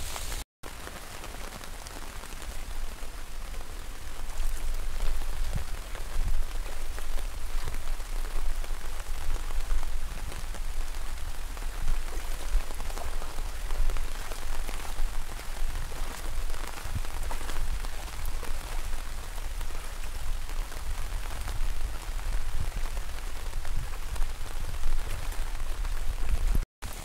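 Rain falling on shallow muddy floodwater: a steady hiss of drops, heavier from about four seconds in.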